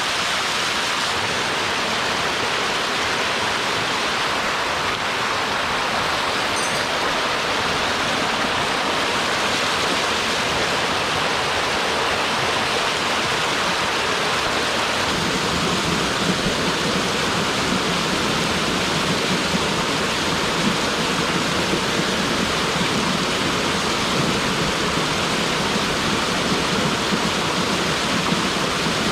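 Mountain stream pouring down a rocky waterfall: a loud, steady rush of water, which takes on a deeper low rumble about halfway through.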